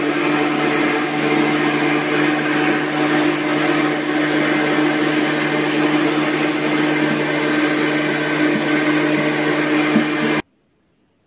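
Homemade PVC-pipe vacuum cleaner, a 775 DC motor spinning a fan, running steadily with a hum over rushing air; it cuts off suddenly about ten seconds in.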